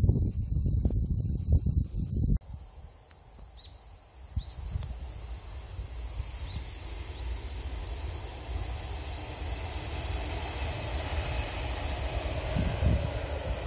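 Outdoor ambience of insects chirping and wind buffeting the microphone with a low rumble, cut off suddenly about two seconds in. After that, a rushing noise of an approaching high-speed train builds steadily toward the end.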